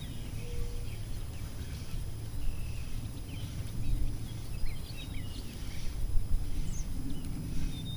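Scattered short bird chirps over a steady low background rumble.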